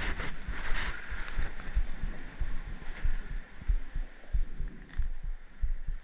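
Irregular soft low thumps of handling noise on a body-worn GoPro action camera, with a faint steady hiss behind them.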